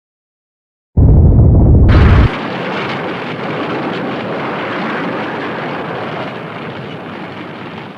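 Film sound effect of an explosion: a sudden, very loud blast about a second in, heaviest in the bass, that drops after a second or so into a long rushing rumble fading out over about six seconds.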